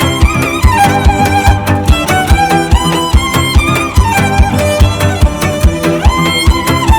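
Background music: a violin melody over a steady, driving beat.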